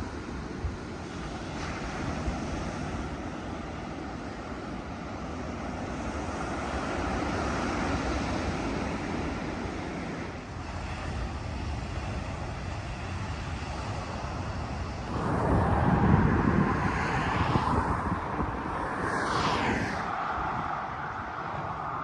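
Steady wind on the microphone over a background rush of passing traffic, with one vehicle passing close and loud about three quarters of the way through, its pitch falling as it goes by.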